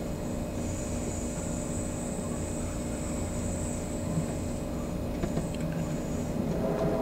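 Amtrak Crescent passenger train running at speed, heard from inside the coach: a steady low rumble of wheels on rail, with a faint high hiss above it and a few light ticks about five seconds in.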